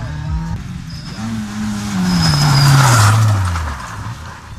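Rally car going past on a loose gravel stage, its engine note falling steadily in pitch as it passes. The rush of tyres on gravel is loudest about halfway through.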